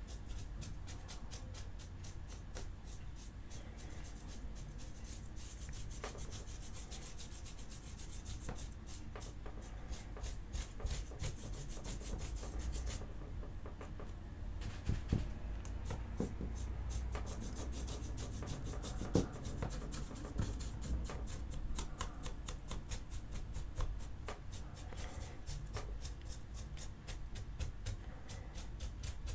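A stiff flat paintbrush dry-brushing the sculpted fur of an action-figure arm: rapid, scratchy rubbing strokes of the bristles, with a short break about halfway through.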